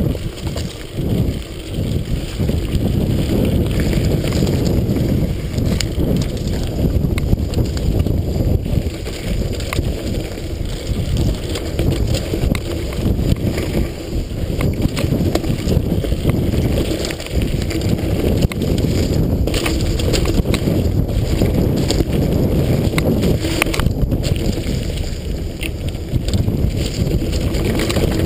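Pivot mountain bike descending a rough dirt trail at speed: steady wind rumble on the microphone, tyre noise on dirt and frequent clicks and knocks as the bike rattles over bumps and rocks.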